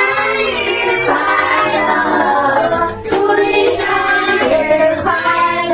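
Song with high, child-like singing over backing music.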